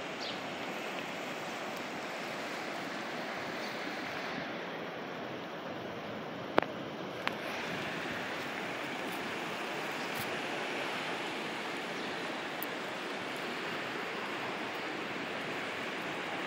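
Steady rush of the flooded São Francisco River's water, an even noisy hiss with no let-up. Two sharp clicks break in about six and a half and seven seconds in.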